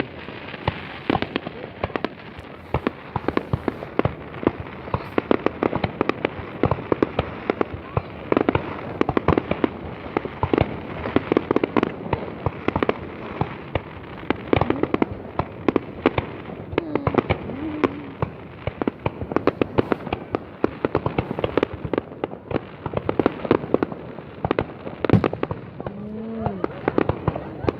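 New Year's Eve fireworks display: a dense, unbroken barrage of bangs and crackling pops.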